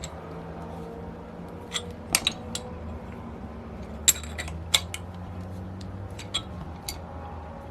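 Metal tools clicking and clinking against a small model engine as a wrench works on its drive hub, a few sharp knocks spread out over a low steady hum.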